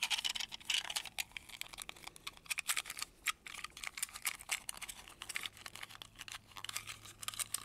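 Hands handling small plastic toy road pieces and their packaging: a dense run of light clicks and crinkles.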